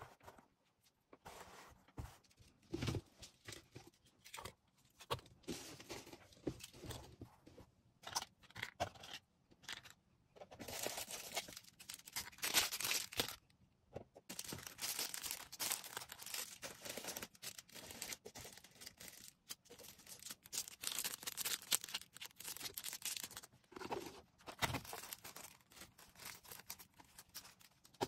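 Hands packing an order: packaging rustling, crinkling and tearing, with many small taps and clicks from items being handled.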